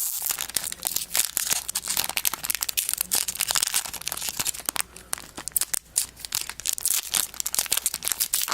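Trading-card pack wrapper crinkling and crackling in a steady irregular patter as fingers work at it, struggling to tear it open.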